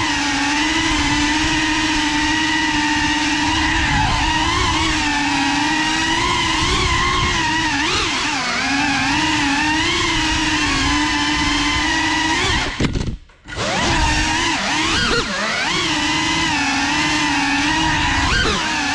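GEPRC Cinelog35 ducted cinewhoop drone's brushless motors and propellers whining steadily, the pitch bending up and down with throttle changes. The whine cuts out almost completely for about half a second around two-thirds of the way through, a throttle chop, then picks up again.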